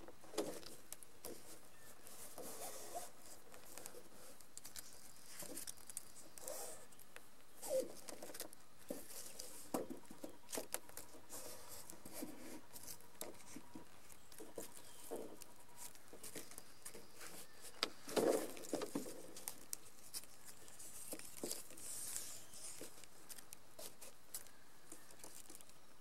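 Clear monofilm sail film crinkling and rustling under hands as adhesive tape is laid and pressed down along a seam, with scattered small clicks and ticks. The loudest burst of crinkling comes about 18 seconds in.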